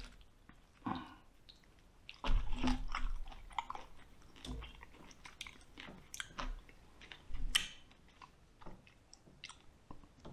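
Close-miked chewing of roasted lamb-head meat, with irregular clicks and smacks in several short clusters, and meat being pulled apart by hand.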